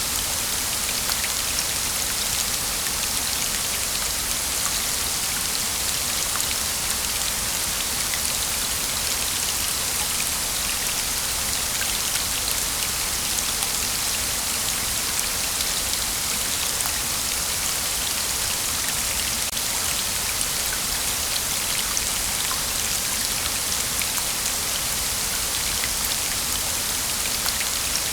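Waterfall: a steady, even rush of falling water splashing onto water and rock, dense with fine spattering.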